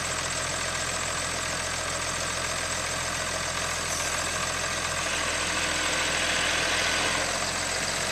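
An engine idling steadily, growing a little louder between about five and seven seconds in.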